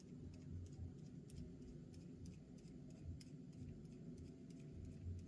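Faint, irregular light clicks and ticks of tiny metal screws and small tools being handled on a workbench, over a low steady hum.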